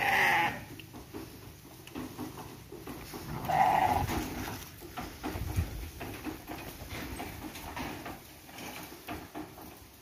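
Sheep bleating twice: a short bleat at the start and a longer one about three and a half seconds in.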